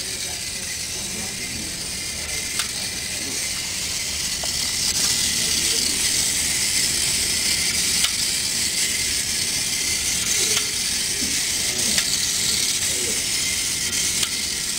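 Small wheeled robot's drive motors whirring with a hissy sound as it scuttles across the floor, getting louder about four or five seconds in, with a few faint clicks.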